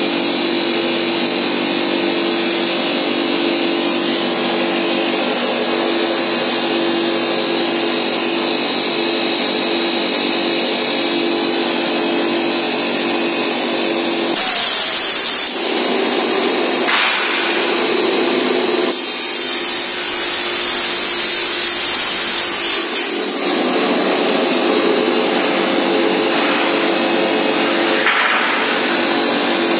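Steel tube mill running with a steady machine hum. Its cut-off saw cuts the tube with a loud high-pitched hiss: briefly about halfway through, then for about four seconds a few seconds later.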